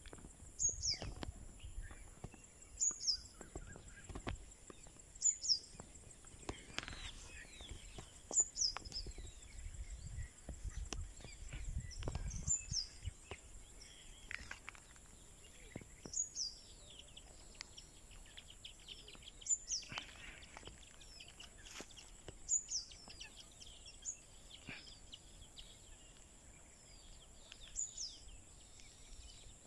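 Birds calling outdoors: a short, high, falling call repeats every two to three seconds among scattered other chirps, over a steady high insect drone. Occasional low rumbles come in the first half.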